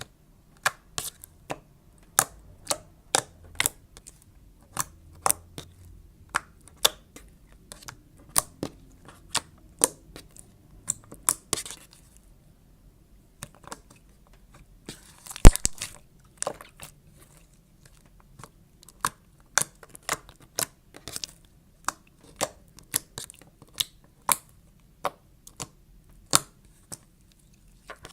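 Slime being squished and stretched by hand, giving irregular sharp clicks and sticky pops, one or two a second, with a louder burst of crackling about halfway through.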